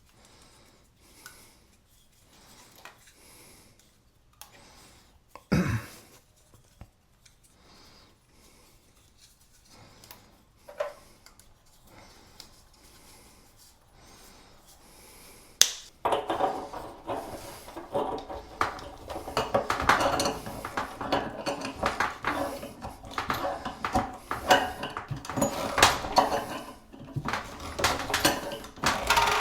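Sparse quiet clicks and taps, with a single knock, then from about halfway a sharp crack followed by a busy run of metallic clinking and knocking as hard metal items are handled during the plumbing work.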